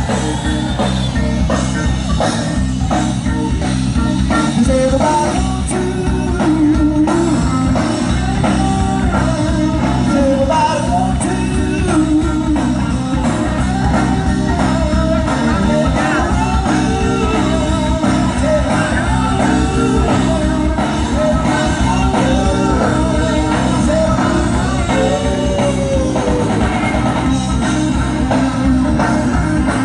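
Live rock band playing loudly, with a singer.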